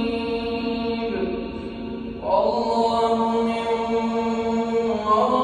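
An imam's voice chanting the prayer's transition calls in long, drawn-out held notes, leading the congregation from bowing down into prostration. The pitch steps up to a higher, louder note about two seconds in.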